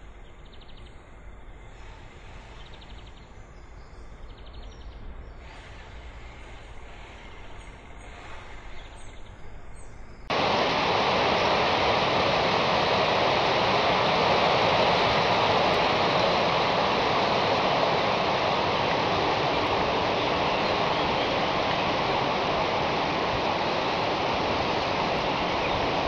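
Soft natural ambience with faint chirping, then about ten seconds in an abrupt cut to a loud, steady rush of running water that continues to the end.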